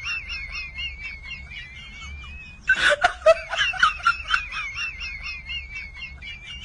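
High-pitched, squeaky giggling: a wavering snicker with quick little pulses, and a louder burst of laughter about two and a half seconds in. It stops abruptly at the end.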